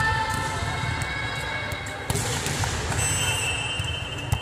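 Volleyball hits echoing in a large indoor hall, with a sharp hit near the end, over steady background calling from players and spectators.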